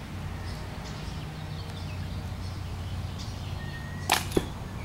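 Hunting slingshot fired with an arrow through an archer's hair-trigger release: a sharp snap of the bands about four seconds in, and a quarter second later a second, sharper knock as the arrow strikes the target.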